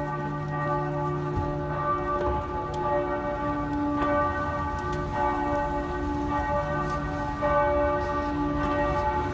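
The bells of Regensburg Cathedral ringing together in a full peal, several bells sounding at once with long, overlapping tones that strike and fade at staggered times.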